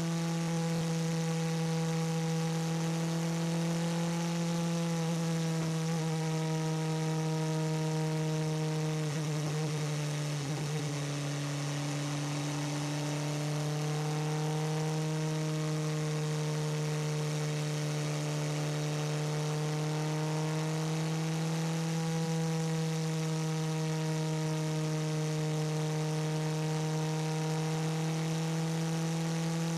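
Toyota TS040 Hybrid racing prototype's V8 engine and drivetrain heard from the cockpit, running at a steady, even pace. The pitch drifts gently and dips briefly about ten seconds in.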